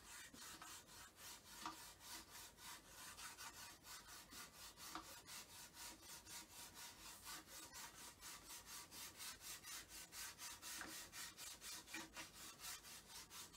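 Faint, rhythmic scratching of a stick of chalk rubbed sideways back and forth over the chalkboard coating of a Russell Hobbs slow cooker, several strokes a second, laying an even coat of chalk to condition the surface before first use.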